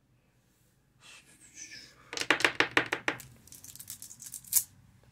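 A deck of cards being riffled and handled: a quick run of about eight crisp clicks a second lasting about a second, then looser scattered clicks ending with one sharp snap near the end.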